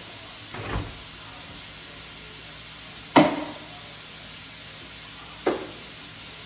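Ground beef frying in butter in a pan on a gas burner, a steady faint sizzle. Three knocks off to the side, a dull thud early, the loudest sharp knock about three seconds in, and a smaller one near the end.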